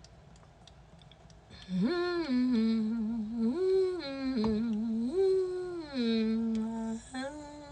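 A woman humming a slow tune in long, held notes, starting about two seconds in.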